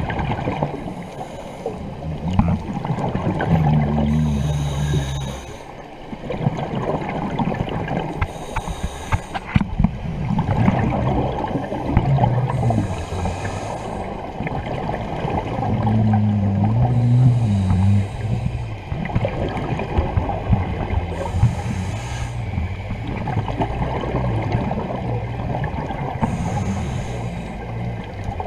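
Scuba diver breathing through a regulator underwater: a hissing inhalation about every four seconds, with bubbly, gurgling exhalations and churning water between them.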